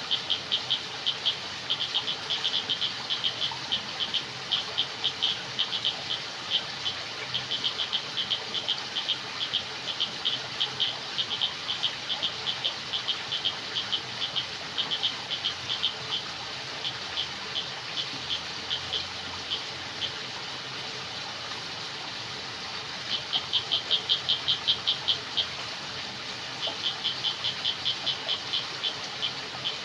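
Frogs calling at night in runs of quick, high clicking pulses over a steady background hiss. The calls stop for several seconds past the middle, then come back in a dense, fast run and carry on.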